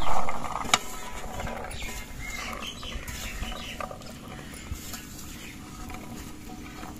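Corn kernels being scooped and sorted by hand on a metal tray, rattling and clicking against the metal, with a louder rush of kernels right at the start.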